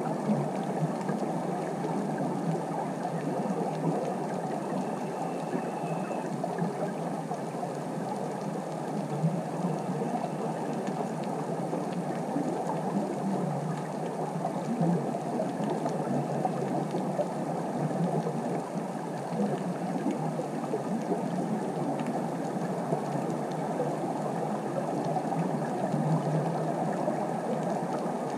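Underwater ambience picked up by a camera on the seabed: a steady, crackling, fizzing hiss.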